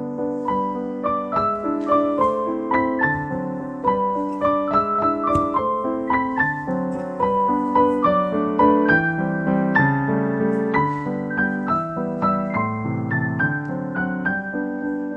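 Background piano music: a gentle, flowing melody of many separate notes over a steady accompaniment.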